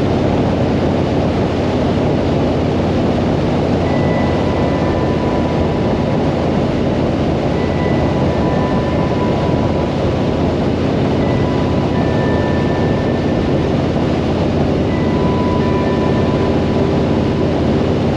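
Harley-Davidson motorcycle running steadily at road speed, its engine and exhaust under a heavy rush of wind on the microphone.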